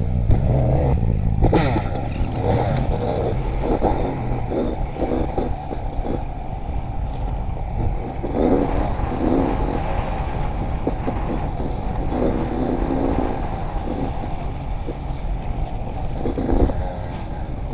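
Yamaha dirt bike engine revving up and down as the bike rides over a rough, rocky gravel track, with a sharp knock about a second and a half in.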